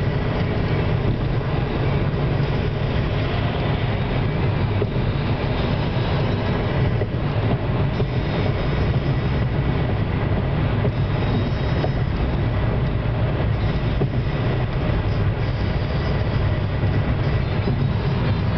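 Steady road noise inside a moving car's cabin: tyres on the pavement with engine hum, a constant low rumble at highway speed.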